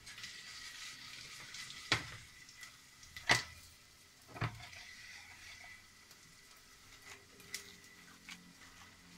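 Hand kneading and squeezing wet minced-beef mixture in a glass bowl: a soft squelching hiss with sharp knocks of hand and bracelets against the glass, the loudest about three seconds in.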